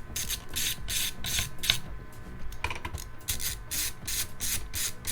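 Handling noises from setting up an NVMe drive install: a run of short scratchy rustles and clicks, about three a second.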